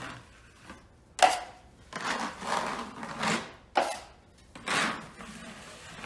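12-inch steel taping knife scraping wet joint compound across a drywall ceiling patch in about six quick strokes, some starting with a sharp clack of the blade.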